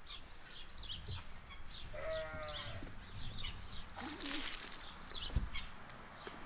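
A goat bleats once, a short wavering call about two seconds in, over small birds chirping repeatedly in the background. About four seconds in comes a brief rustling hiss as grain is scattered from a scoop onto a plastic tub, and a dull thump follows about a second later.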